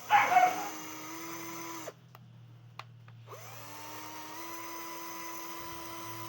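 Cordless drill, powered by a brush cutter battery wired in, spinning up and running with a steady whine, stopping after about two seconds, then spinning up again and running on, its pitch stepping up a little partway through. A loud rough burst comes right at the start.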